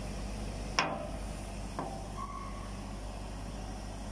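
A steady low mechanical hum in the background, with a sharp click about a second in and a softer click a second later as small metal valve parts are handled.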